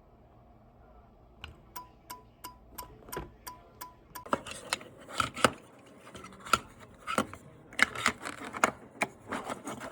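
Faulty Kasa Wi-Fi light switch clicking over and over, about three sharp clicks a second, the kind of repeated clicking its owner traces to a bulged, failed capacitor. From about four seconds in come louder, irregular clicks and knocks.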